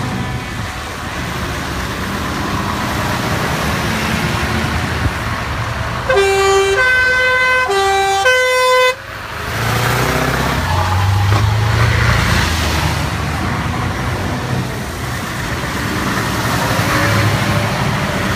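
Scania lorries driving slowly past on a wet road, diesel engines running with tyre hiss. About six seconds in, a multi-note air horn plays a short run of notes changing in pitch for about three seconds, then a truck's engine drones close by as it passes.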